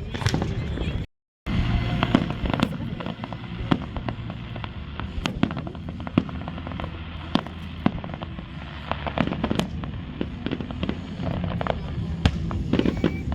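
Fireworks going off in quick succession: many sharp cracks and pops scattered throughout.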